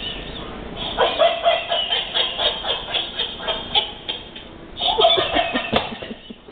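Electronic plush longhorn steer toy giggling, a fast run of repeated laughs that pauses briefly and starts again near the end.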